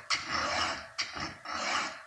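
Chainsaw chain being sharpened by hand with a round file: a few rasping file strokes across a cutter tooth, each starting sharply and fading over about half a second.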